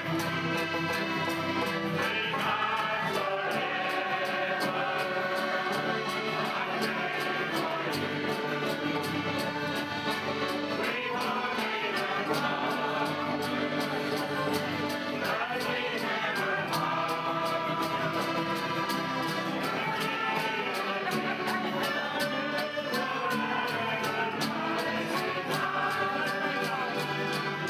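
Irish traditional music session: acoustic guitars strummed, tin whistles and accordion playing a tune together, with a roomful of people singing along.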